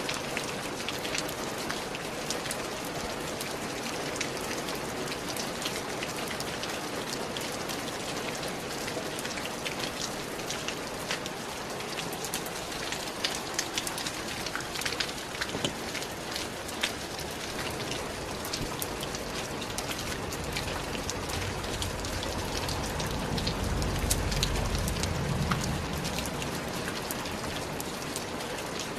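Steady rain falling, with many individual drops ticking against a surface over an even hiss. About two-thirds of the way through, a low rumble swells and then fades.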